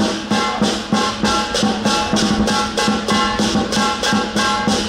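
Lion dance percussion: a drum, cymbals and gong playing a fast, steady beat of about four strikes a second, the cymbals shimmering and the gong ringing on.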